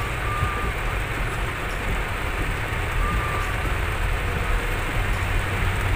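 Heavy rain falling on a car's roof and windshield, heard from inside the cabin over the steady low rumble of the car's engine and tyres. Two faint short squeaks come through, about a fifth of a second and three seconds in.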